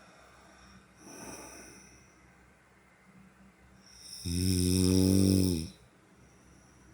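Snoring in sleep: a faint breath about a second in, then one loud, low snore lasting about a second and a half, starting about four seconds in.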